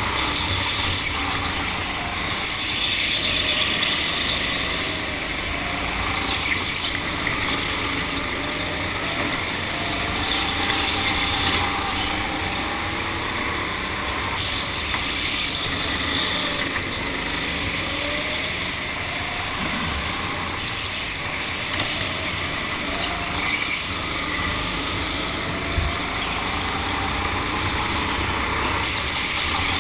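Go-kart running continuously as it is driven around an indoor track, its motor note rising and falling as it slows for corners and speeds up again, over steady noise and a few brief knocks.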